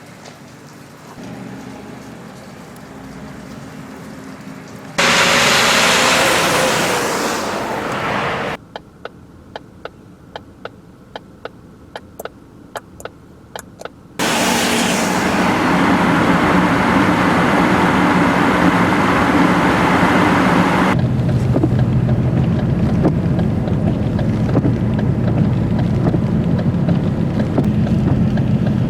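Noise inside a moving vehicle: the engine hum and a loud rushing of road, wind and fan noise. About five seconds in, the rushing cuts off abruptly and a steady ticking, about two to three clicks a second, is heard for several seconds. Then the loud running noise comes back and grows louder toward the end.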